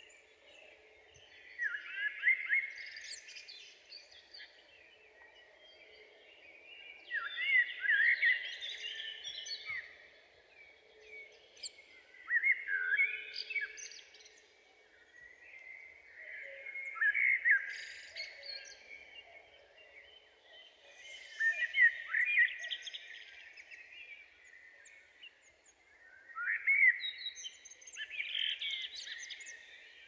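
A songbird singing in short phrases of quick, varied notes, six phrases a few seconds apart, over a faint steady background hum.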